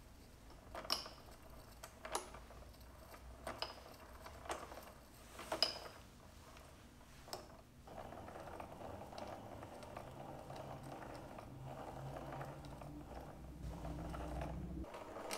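A few sharp clicks and taps, then a small metal lathe running from about halfway in while its tool cuts fine grooves into the end of a metal rod. The motor's hum cuts off abruptly just before the end.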